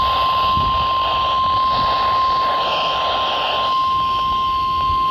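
NOAA Weather Radio 1050 Hz warning alarm tone: a single steady, loud beep held without a break over the receiver's static hiss. It signals that a warning broadcast is about to follow.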